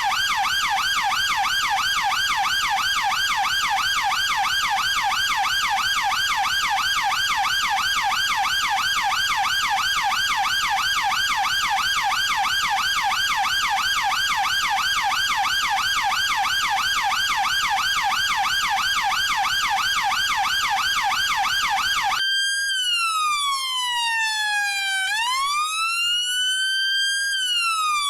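British police car siren sounding a fast yelp, its pitch warbling up and down about four times a second. Near the end it switches abruptly to a slow wail that glides down, back up and down again over a few seconds.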